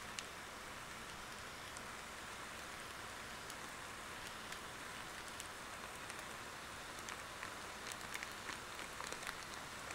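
Faint steady sizzle from a pan of flaked tuna on the stove, with scattered small clicks and ticks, more of them in the last few seconds, as curry paste is squeezed from its plastic packet and scraped off with a spatula.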